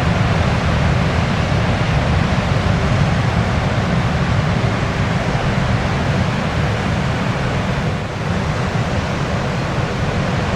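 Steady rush of sea waves washing on the shore, with a deep rumble underneath.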